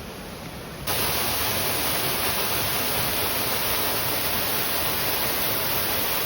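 Waterfall rushing: a steady hiss of falling water that jumps abruptly louder about a second in and then holds.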